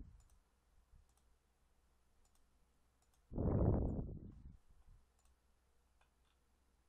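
Faint computer mouse clicks, with one louder muffled rush of noise lasting just over a second about halfway through.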